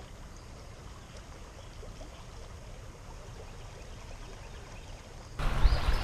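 Creek water flowing steadily over shallow riffles. About five seconds in, background music with a deep bass comes in suddenly.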